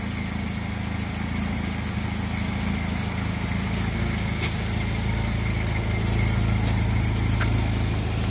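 1997 Jeep Wrangler engine idling steadily, getting a little louder near the end.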